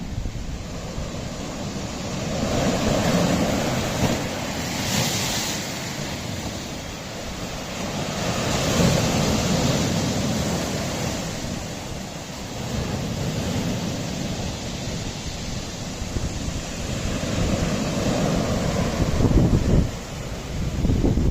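Sea waves breaking and washing on a rocky shore, surging and easing every few seconds, with a brief hissing wash about five seconds in. Wind buffets the microphone throughout.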